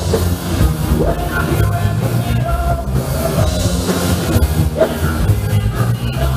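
Live rock band playing: drum kit, strong bass and guitars, amplified through loudspeakers.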